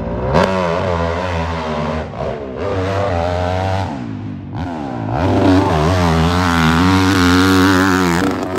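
Four-stroke dirt bike engine at full throttle, launching and climbing a steep hill. The revs rise sharply at the start, drop briefly twice, then hold high through a long pull near the end.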